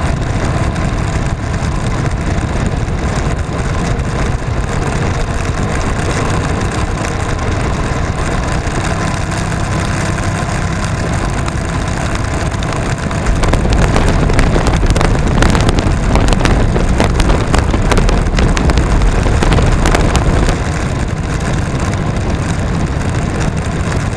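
Motorcycle riding at highway speed: a steady rush of wind on the microphone over engine and road noise, growing louder about halfway through for several seconds.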